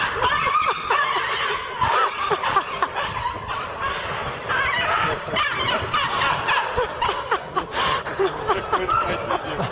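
Several people laughing and giggling, with bursts of chuckling throughout.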